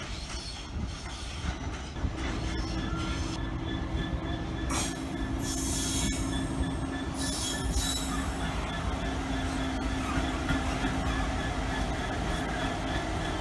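GBRf Class 66 diesel locomotive, with its EMD two-stroke engine, running past slowly hauling a train of box wagons: a steady engine drone with a hum that comes in about two seconds in, and the wheels squealing on the rails with two short louder shrieks.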